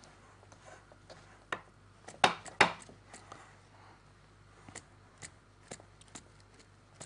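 Metal fork stirring and scraping a stiff, crumbly flour dough in a glass bowl, giving scattered clicks and taps against the glass. The loudest are two sharp taps a little after two seconds in.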